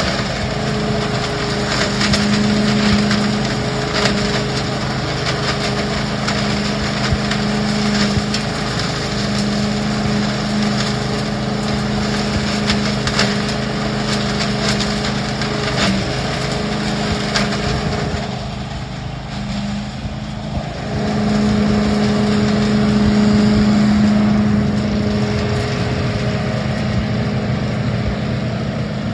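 Billy Goat DL1801 truck-mounted debris loader running steadily, its engine-driven fan humming while the hose sucks up dry leaves and twigs that clatter through it. The sound dips briefly and then swells louder about two-thirds of the way through.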